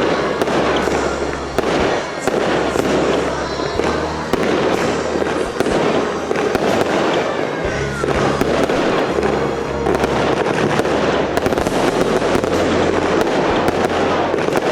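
Fireworks display: a dense run of bangs and crackling pops, one after another, with music playing underneath.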